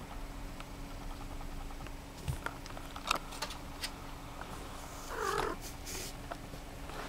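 Domestic cat purring close to the microphone, with a few light clicks and rustles as she moves into the cardboard box, and a short cat call about five seconds in.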